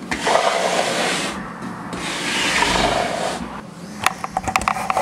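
Rubbing and scraping handling noise as a desktop computer case is turned around, ending in a few light knocks and clicks about three and a half seconds in.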